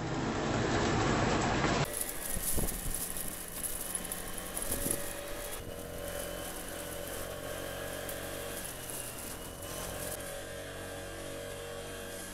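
About two seconds of loud, even hiss, then the steady running and road noise of a vehicle as picked up by its dashcam, with a faint steady whine over it.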